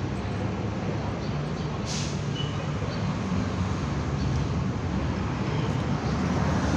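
Steady mechanical rumble with a low hum, like traffic or an engine running nearby, and a single sharp click about two seconds in.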